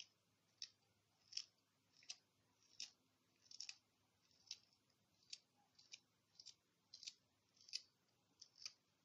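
Parsley sprigs being cut: about fourteen faint, crisp snips at an uneven pace of roughly one or two a second.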